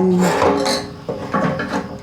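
Fuel pump assembly scraping and rubbing against the tank's opening as it is eased out of a motorcycle fuel tank.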